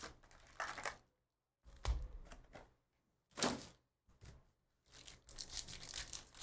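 Foil trading-card packs crinkling in short bursts as they are handled and stacked, with a pack starting to be torn open near the end.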